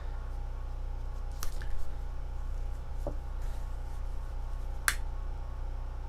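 A few short, sharp clicks and snips from scissors and a lighter trimming and sealing paracord ends, the loudest near the end, over a steady low hum.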